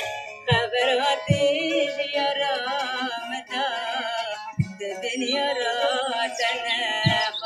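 A song playing: a singing voice with a wavering, ornamented melody over instrumental accompaniment, with a few low thumps.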